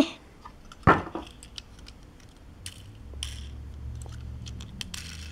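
Handling of an opened Hot Wheels blister pack and its die-cast Tesla Model S toy car: a sharp knock about a second in, then scattered light clicks and ticks.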